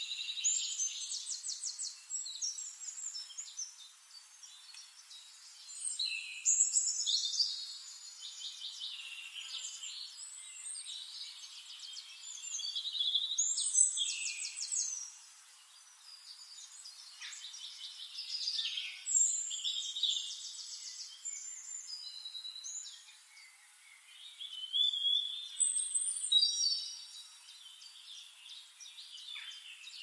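Several songbirds singing over one another in rapid trills and chirps, in phrases a few seconds long. The loudest bursts come about 6, 13 and 25 seconds in.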